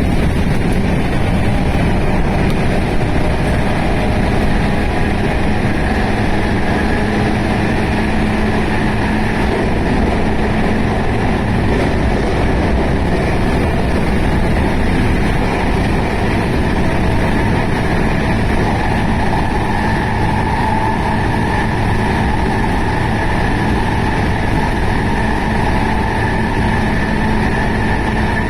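JR West 221 series electric train running at speed: a steady, loud rumble of wheels on rail with the hum and whine of its DC series-wound traction motors, the whine growing a little stronger about two-thirds of the way through.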